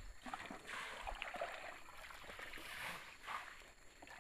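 Faint sloshing and trickling of muddy water in the flooded ruts of a mud road, swelling and fading unevenly.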